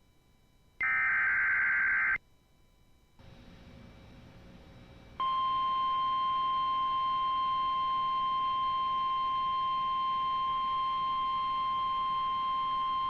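The last burst of an Emergency Alert System SAME header: a loud, harsh digital data screech about a second and a half long. After a short pause with faint hiss, the NOAA Weather Radio 1050 Hz warning alarm starts about five seconds in, one steady unbroken tone that signals an urgent weather warning is coming.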